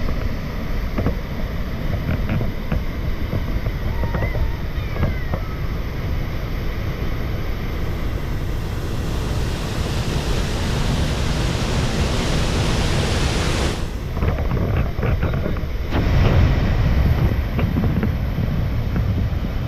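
Rain-swollen water rushing in a steady roar, with a low rumble of wind on the microphone. The hiss grows brighter for several seconds in the middle.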